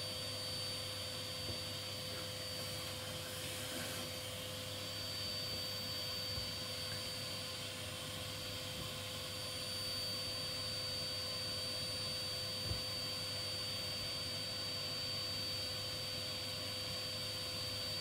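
DeWalt cordless drill running steadily, boring a concealed-hinge cup hole into a kitchen cabinet door; an even whir that holds the same pitch throughout, with one light knock about two-thirds of the way through.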